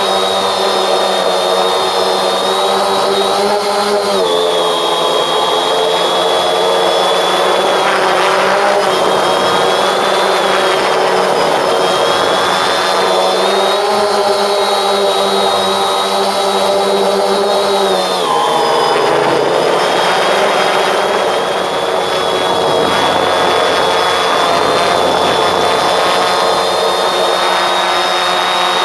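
Multirotor drone's electric motors and propellers buzzing steadily right beside the microphone as the drone hovers and manoeuvres. The pitch shifts with its movements, dropping briefly about four seconds in and again around eighteen seconds, and rising around fourteen seconds.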